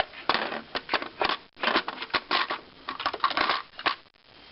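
Hard plastic toy pieces being handled: a rapid, irregular run of clicks, taps and short scrapes, which dies away near the end.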